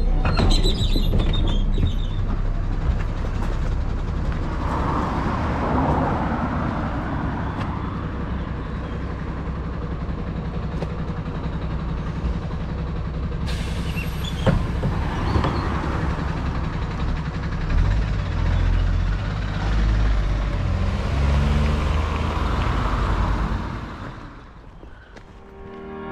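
Diesel engine of an Iveco city bus running at a stop, with several hisses of compressed air from its brakes and doors. Near the end the engine note climbs as the bus pulls away, then fades.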